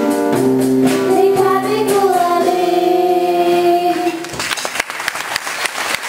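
Three girls singing into microphones with a small live band, ending on a long held note. The song stops about four seconds in and the audience applauds.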